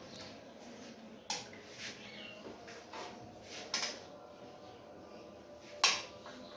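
Scattered sharp knocks and clatter, about four separate strikes, the loudest near the end, like utensils and cookware being handled at a food stall.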